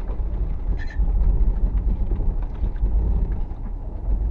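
A steady low rumble that swells and dips.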